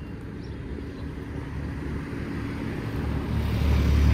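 A motor vehicle's engine rumble, growing louder as the vehicle draws near over the last second or so.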